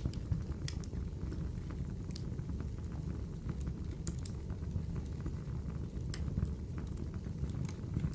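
Wood fire burning in a fireplace: a steady low rumble of flames with scattered sharp crackles and pops at irregular moments.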